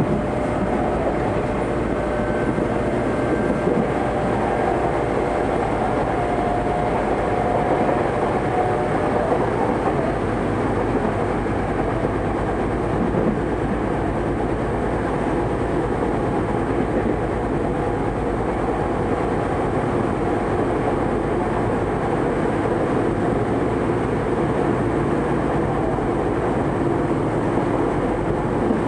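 Tokyo Metro 03 series electric train running at speed, heard from inside the passenger car: a steady, even rumble of wheels on rail. A faint steady whine, the sound of its four-quadrant chopper control, fades after about nine seconds.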